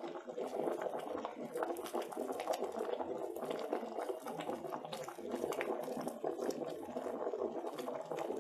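Vegetable soup boiling in an electric kettle: a steady, dense bubbling and popping of the liquid.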